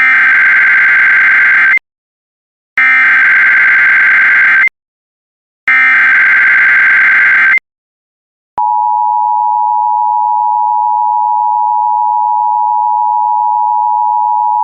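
Emergency Alert System SAME header: three bursts of warbling digital data tones, each about two seconds long with a second's pause between, followed by the EAS two-tone attention signal, a steady, harsh two-note tone that starts about halfway through and holds. Together they announce an incoming emergency alert, here an Amber Alert.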